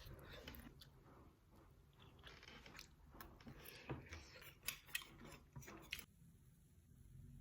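Faint eating sounds: soft chewing with small clicks, until about six seconds in, when they stop and only a low steady hum is left.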